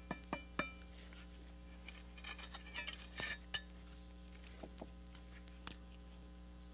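Bricklaying: a trowel handle knocking a brick down into its mortar bed, three sharp taps in the first second, followed by the steel trowel scraping and clinking along the brick as excess mortar is cut away, with a few light clicks after.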